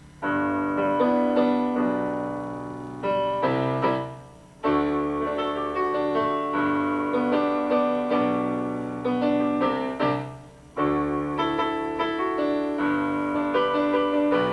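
Solo piano playing an instrumental arrangement, melody over chords, in phrases that break off briefly about four and a half and ten and a half seconds in.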